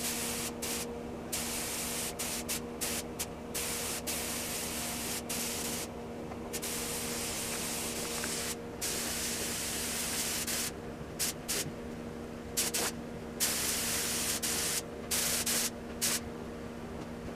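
Paint spray gun hissing as it sprays a coat of paint, cutting off and starting again many times as the trigger is let go between passes, over a steady low hum.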